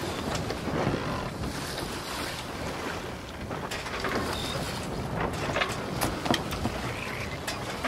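Canal tour boat under way: wind buffeting the microphone over a steady rush of water, with scattered light clicks and knocks.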